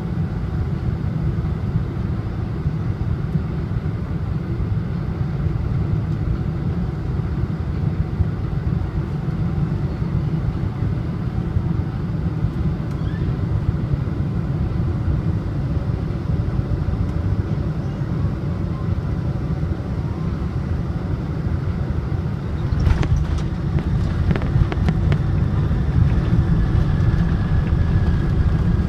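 Cabin noise of a Boeing 747-400 on final approach: a steady low rumble of engines and rushing air. Near the end the main wheels touch down with a knock and rattle, and the rumble grows louder as the jet rolls out on the runway with its spoilers raised.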